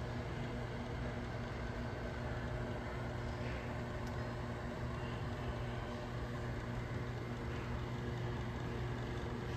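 Steady low machine hum with a few fixed low tones, unchanging throughout.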